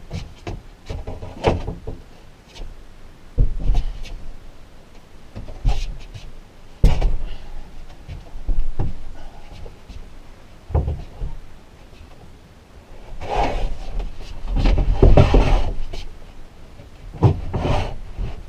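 Wooden boards being handled and set into place on a wooden frame: irregular knocks and thumps, with a longer stretch of wood scraping and rubbing about two-thirds of the way through.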